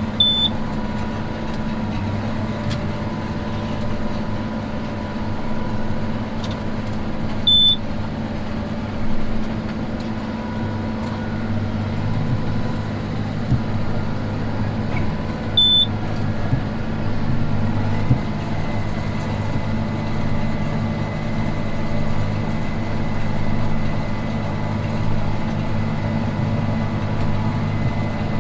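Tractor engine running steadily under load while pulling a conventional baler through a row of straw. Single short high electronic beeps sound near the start, about 8 seconds in and about 16 seconds in.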